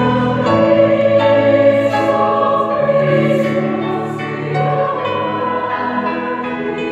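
A chamber choir and children's choirs singing a Christmas carol together in long sustained chords, ringing in a large reverberant church.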